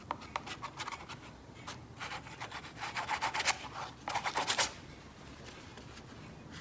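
A hand tool scraping oil and cold wax paint across heavy oil paper, in three spells of scratchy strokes about two, three and four seconds in, after a few light ticks.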